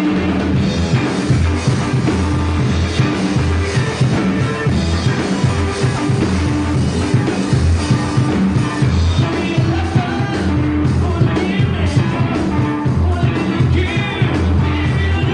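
Live rock band playing: electric guitars, bass guitar and a drum kit, with the drums and bass coming in right at the start over the guitar. A man sings over the band in the second half.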